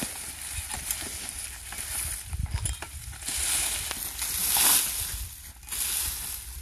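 Dry, burnt sugarcane stalks and leaves rustling and crackling as an armful of cut cane is gathered and carried, with a few light snaps in the first second and a louder swishing rustle from about three to five seconds in.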